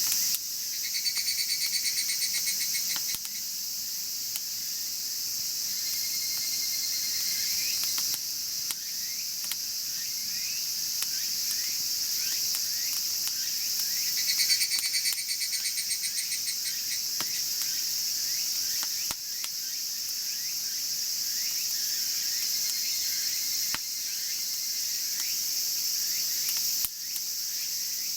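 Night insects chirping steadily, with a pulsed cricket trill coming back every few seconds. Scattered sharp crackles come from the wood fire burning in the chiminea.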